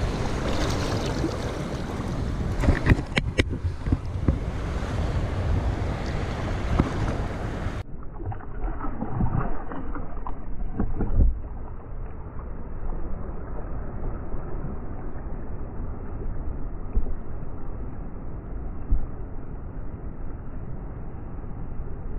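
Shallow surf washing and splashing around hands and a red drum being released, with wind buffeting the microphone and a few sharp splashes in the first few seconds. About eight seconds in, the sound turns duller and steadier, a low wash of water and wind.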